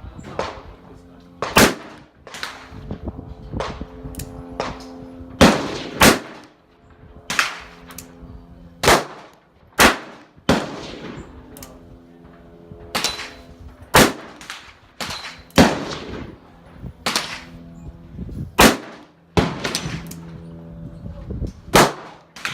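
A string of single gunshots at a shooting range, roughly one a second and of varying loudness, among them a .357 Magnum revolver firing .38 Special rounds; each crack is followed by a short ring.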